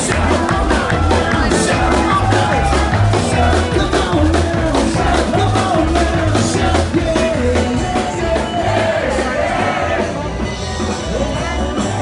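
Live band music with a singer, a steady drum beat and bass, spilling from an open bar front; it grows a little fainter near the end.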